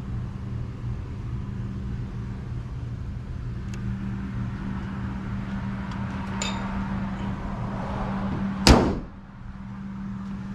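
Hyundai Palisade engine idling with a steady low hum, then one loud slam near the end, like a car door or the hood being shut.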